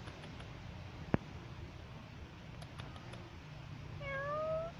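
A calico cat meows once near the end, a short call rising slightly in pitch. A single sharp click about a second in.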